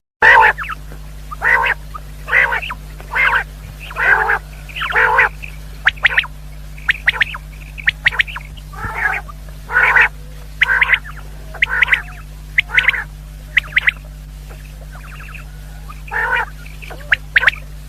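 Common quail calling: a long series of short, harsh notes, about one every half second to a second, with thinner, higher chirps mixed in, over a steady low hum.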